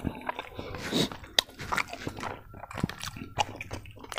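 A person chewing a mouthful of food close to the microphone: irregular sharp clicks and wet mouth sounds.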